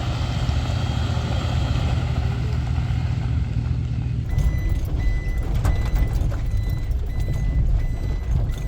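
A vehicle engine running. About four seconds in, the sound changes abruptly to a low rumble with a regular high electronic beep about every two-thirds of a second.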